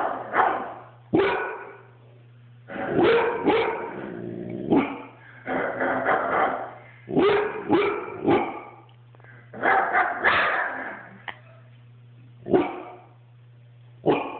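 Labrador retriever vocalizing in a series of about eight short woofing, bark-like calls, one of them drawn out a few seconds in: the dog mimicking a man's "what?". A steady low hum runs underneath.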